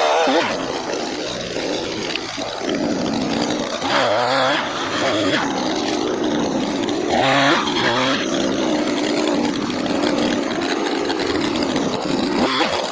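Gas-powered two-stroke pole saw running at speed while cutting dead branches out of a bush. The engine drone surges up in pitch briefly about four seconds in and again near the middle as the chain bites.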